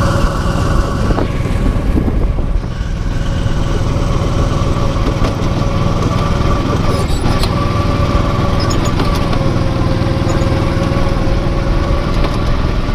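Small petrol engine of a go-kart running at a steady speed, its pitch holding level.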